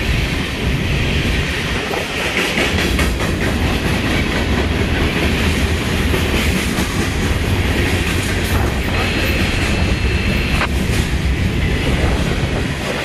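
Covered hopper cars of a BNSF freight train rolling past close by: a steady, loud rumble of steel wheels on the rails with rapid clicking over the rail joints. A thin, high wheel squeal rises over it for a second or two about nine seconds in.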